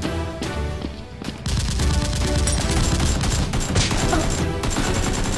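Background music, then from about a second and a half in, rapid continuous gunfire sound effects over it, dubbed onto a toy-blaster shootout.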